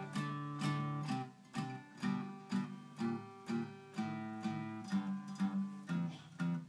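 Acoustic guitar strummed in chords, about two strums a second, with no singing: the instrumental close of the song.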